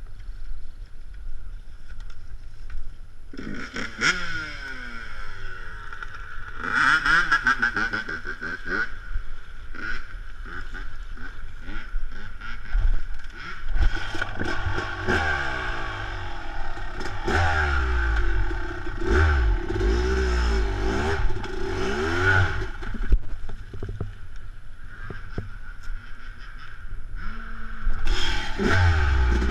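Yamaha YZ250 two-stroke dirt bike engine being ridden on a trail, revving up and falling back again and again as the throttle is worked. The engine is faint for the first few seconds, then blips in short bursts, and revs almost without break from about halfway through.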